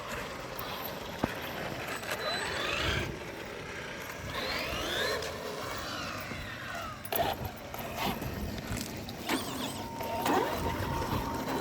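Electric RC car motor whining, its pitch rising and falling several times as the throttle is worked, over a steady hiss.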